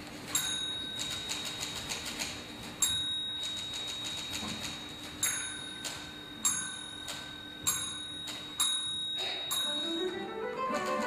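Typewriter played as a percussion instrument: rapid key clicks, with the carriage-return bell ringing six times. Near the end a guitar ensemble comes in with a rising run of plucked notes.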